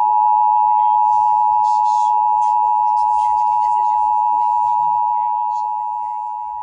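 Emergency Alert System two-tone attention signal: a steady, loud alarm tone that follows the digital data header, easing down somewhat in level about five seconds in.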